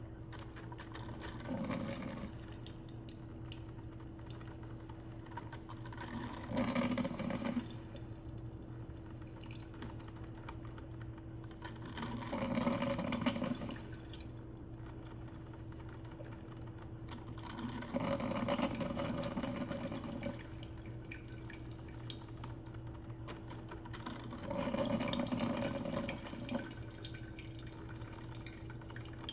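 Mr. Coffee 12-cup drip coffee maker brewing: its heater pushes hot water up to the filter in bursts of gurgling and sputtering, each a second or two long, about every six seconds.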